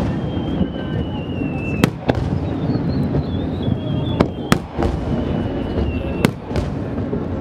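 Aerial fireworks shells bursting overhead: about five sharp bangs, one to two seconds apart, two of them close together in the middle, over steady background noise. Thin high whistles glide slightly down before some of the bangs.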